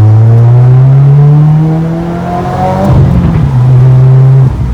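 Subaru WRX turbocharged flat-four accelerating hard through a non-resonated midpipe and Remark axle-back exhaust, with a deep exhaust note. The pitch climbs steadily for about three seconds and breaks roughly. It then runs on at a steady lower pitch and falls away suddenly near the end.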